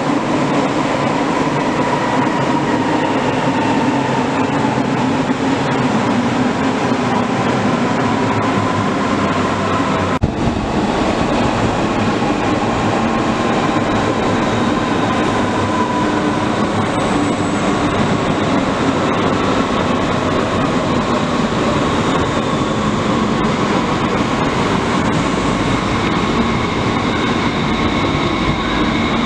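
Red DB S-Bahn electric trains running along the platform in an underground station: steady rail rumble under a whine of slowly gliding tones from the electric traction motors, echoing in the tunnel. The sound changes abruptly about ten seconds in.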